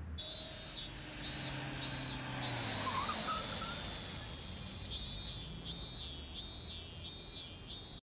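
Cicadas singing in a string of short, high buzzes, just under two a second, with one long held buzz in the middle.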